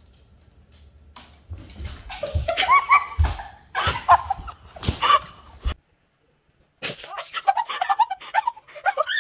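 Crutch tips and a bare foot knocking down carpeted stairs onto a wood floor, several irregular thumps, with a girl's voice sounding between them. The sound cuts out for about a second just past the middle, then her voice comes back.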